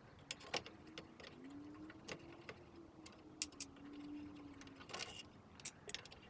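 Screws being backed out of a pinball machine's speaker bracket: faint scattered clicks and ticks of a driver and small metal parts. A faint low hum runs through the middle and stops about five seconds in.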